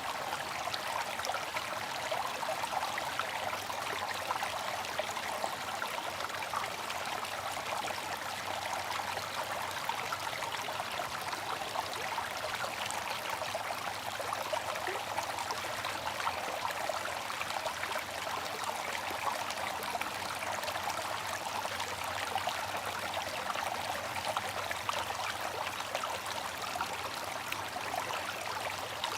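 Bamboo water fountain: water trickling and splashing in a steady, unbroken flow.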